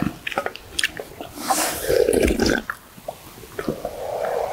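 A person slurping hot soup broth, twice, drinking straight from a stainless-steel bowl, with a few light clinks of utensils against the bowl near the start.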